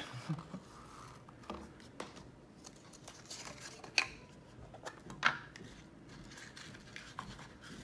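Paper rustling and crinkling as a small cardboard jewellery box is gift-wrapped by hand, with a few sharp clicks and taps from the box being handled, the loudest about four and five seconds in.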